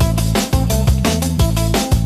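Dub-style music track: a deep, sustained bass line under a steady drum beat with sharp, evenly spaced hits.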